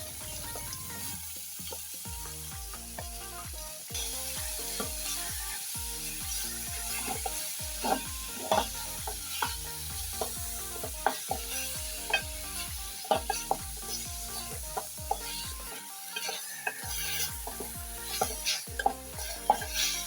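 Beef pieces sizzling as they sear in hot oil in a pot, with a utensil scraping and clacking against the pot as the meat is stirred and turned. The clacks come more often in the second half.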